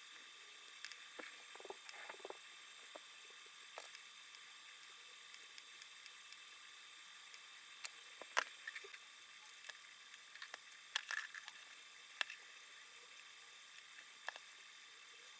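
Faint, irregular clicks and light taps of small clock parts and tools being handled during work on a wind-up alarm clock, over a steady faint hiss. A few sharper clicks stand out about eight and eleven seconds in.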